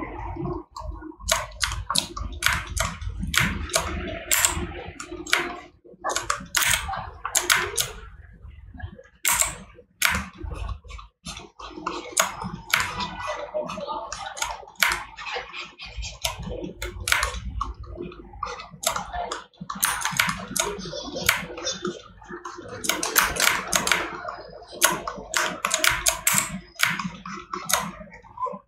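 Computer keyboard and mouse clicking and tapping in quick, irregular runs over a low rumble, from working the sculpting software.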